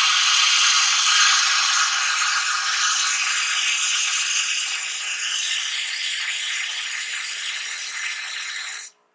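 Hot water spitting and hissing from the hot-water wand of a Rocket Appartamento espresso machine as it is drawn off, easing slightly over time and cut off sharply near the end.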